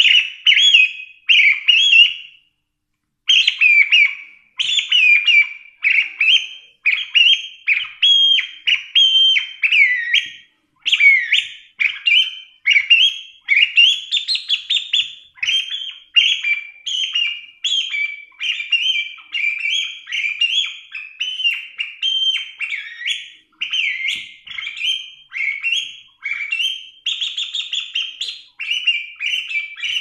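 Chioccolo, a small mouth-held bird-call whistle, blown in a fast, unbroken run of short chirps and warbling whistles that imitate birdsong. There is one short break about two and a half seconds in.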